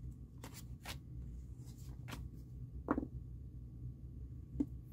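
Paper banknotes being handled and counted into a binder's cash envelope: a handful of short, crisp rustles and flicks of paper money.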